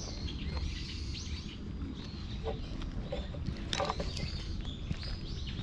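Small birds chirping over and over in short, high notes above a steady low rumble, with one brief louder sound nearly four seconds in.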